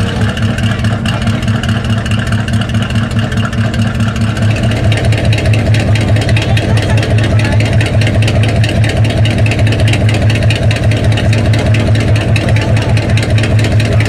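Chevrolet Camaro Z28's V8 idling through a side-exit exhaust, steady in pitch, with a rhythmic lope that pulses a few times a second.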